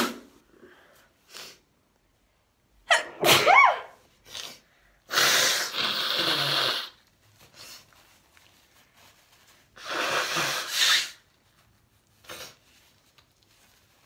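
A woman sneezes once with a voiced rise and fall about three seconds in, then blows her nose into a paper tissue twice, each blow lasting over a second.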